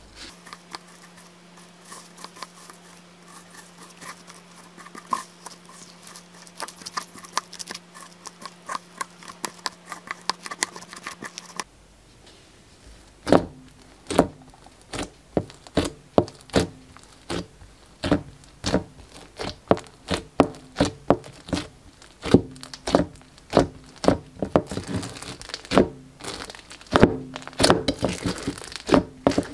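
A clear plastic piping-bag tip scoops and stirs through a plate of loose foam beads, a dense run of tiny ticks. About twelve seconds in, it gives way to a hand pressing and poking glossy slime packed with foam beads, with louder separate pops and crackles about one to two a second.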